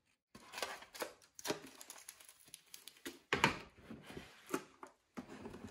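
Packaging being handled: irregular rustling and light clicks and knocks from a cardboard gift box, crinkly shredded filler and a metal biscuit tin, with a louder knock about three and a half seconds in.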